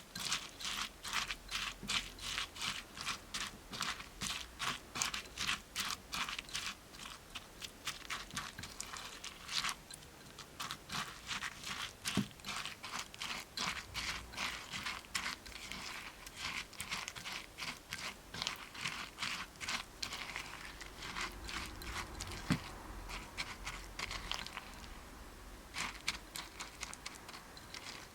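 Rapid crisp crunching, several crunches a second, of dry floral foam being crushed and cut.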